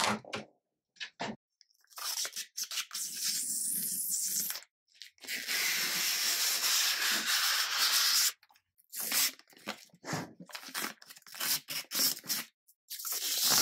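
Clear protective plastic film being peeled off a 3D printer's glass door and panels: crinkling and tearing in irregular bursts, with one long steady peel about five to eight seconds in.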